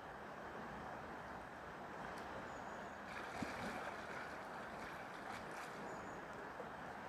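Steyr river flowing: a steady rush of water, with one faint tick about three and a half seconds in.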